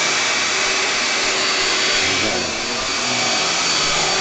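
Small corded electric vacuum cleaner running steadily, a continuous motor hum with a steady whine.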